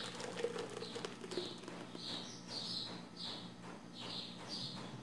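A small bird chirping over and over in the background, short high chirps about twice a second.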